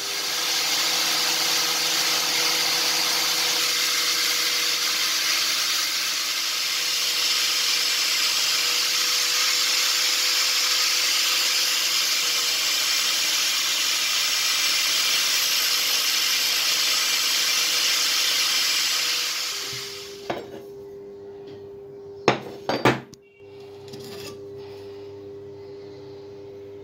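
Belt grinder grinding a steel knife blank against its abrasive belt: a steady rasping hiss over a low hum for about twenty seconds. Then the grinding stops, a few sharp knocks follow, and the hum carries on.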